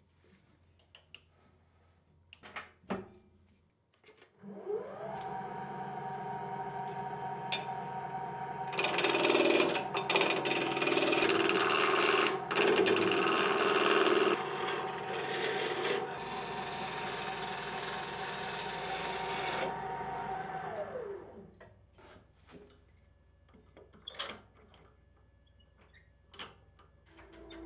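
Wood lathe motor spinning up with a rising whine, running steadily, then winding down about 21 seconds in. From about 9 to 16 seconds a turning tool cuts a square wooden blank round, a loud rough scraping over the motor. Before and after come the knocks and clicks of mounting the blank in the chuck and working the chuck.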